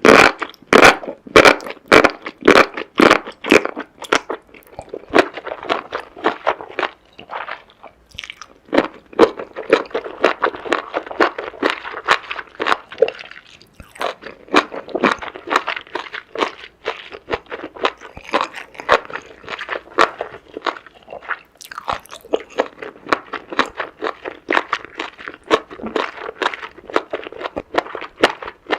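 Close-miked eating of seafood: crisp crunching bites, about two a second for the first few seconds, then steady chewing full of small crunches, pausing briefly now and then.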